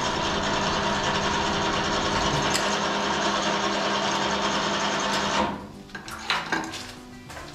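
Cylinder boring bar running steadily with a constant hum while boring an engine cylinder sleeve in passes; it shuts off about five and a half seconds in. A few light metal clicks and knocks follow as the cutter head is handled.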